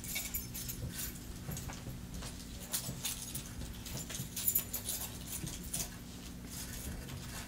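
Faint scattered taps, clicks and rustles of a reader's hands working on the music stand near the microphones while she looks for her lost place, over a steady low room hum.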